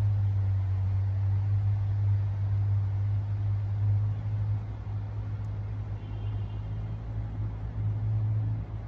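Engine running steadily at low revs, a deep even rumble that swells and eases slightly.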